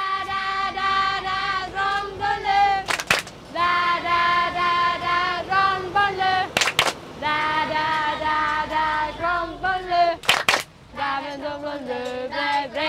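A group of children singing a song together, with a double clap every three and a half seconds or so.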